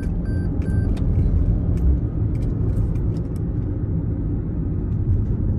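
Steady low road and engine rumble of a moving car, heard from inside the cabin. Three short high beeps sound in quick succession about a second in.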